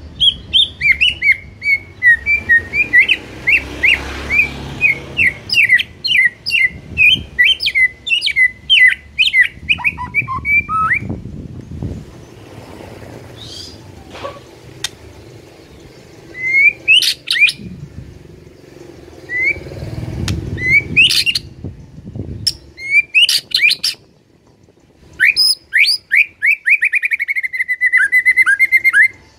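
White-rumped shama (murai batu) singing loudly: a long run of rapid, sharp whistled notes for about ten seconds, then after a quieter gap a few short phrases, and near the end another fast run that settles into an even trill.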